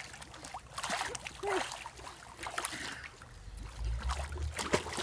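Swimming-pool water splashing and sloshing as a small child paddles, with a low rumble coming in about three seconds in.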